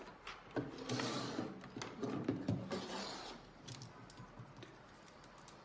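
Handling noise of small plastic gear: a run of irregular clicks and rustles, dying away about four seconds in.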